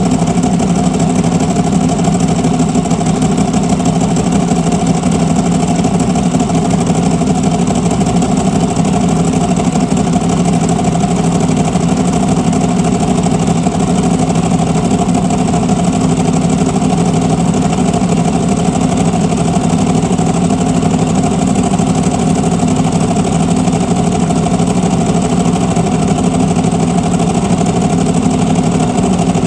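Ducati 1098 S's L-twin engine, with stock exhaust and a dry clutch, idling steadily at one speed with no revving. It is heard from inside a helmet.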